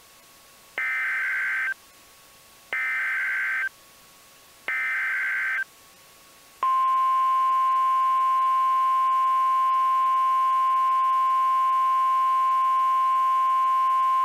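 NOAA Weather Radio emergency alert: three roughly one-second bursts of warbling SAME digital header data, then, about six and a half seconds in, the louder steady 1050 Hz warning alarm tone, which marks the start of a tornado warning broadcast.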